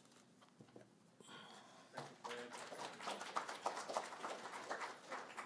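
Footsteps of two men crossing a wooden stage floor, a run of irregular knocks starting about two seconds in.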